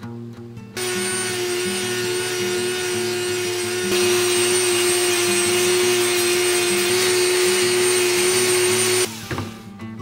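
Handheld rotary tool with an abrasive buffing wheel running at high speed, buffing the flattened brass of a .50 BMG cartridge case: a steady high whine with a hiss that starts about a second in, gets louder about four seconds in, and cuts off near the end. Acoustic guitar music plays underneath.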